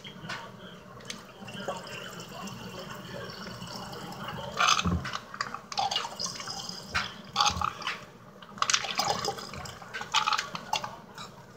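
A juice pouch being squeezed and wrung out over a glass jar, its juice dripping and squirting into the liquid below. Irregular crinkles and splashes, loudest about five seconds in and again around seven to nine seconds in.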